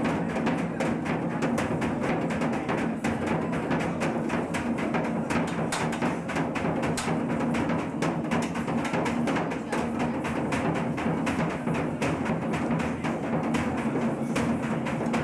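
A large painted drum beaten fast and continuously with sticks, the strokes following close on one another.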